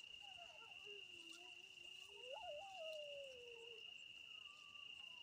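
Crickets trilling at night in one steady high note, with sheep bleating faintly in several long, wavering calls; the strongest bleat comes about two and a half seconds in.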